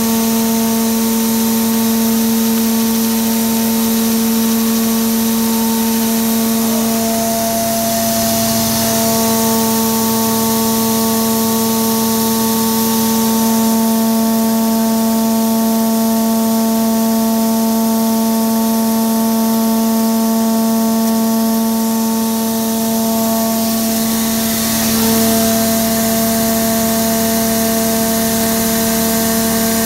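Hammer-mill crusher running steadily, grinding PS balls to powder: a constant hum with several overtones over a steady hiss.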